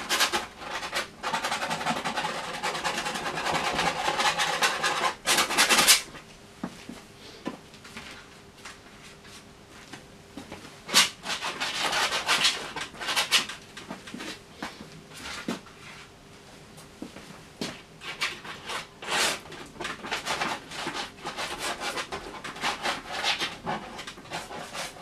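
Palette knife scraping through and spreading thick paint: a loud, continuous run of scraping for the first six seconds, then quieter, separate strokes in clusters.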